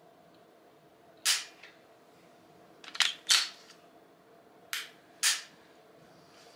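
Dry-fire trigger clicks from an unloaded CZ P10 C striker-fired pistol fitted with an aftermarket trigger, worked to show its break and short reset: one sharp click, then two close pairs of clicks. The break is described as really crisp.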